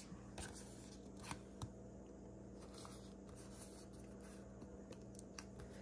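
Pokémon trading cards being slid and flipped by hand: faint rubbing with a few sharp little clicks, over a steady low hum.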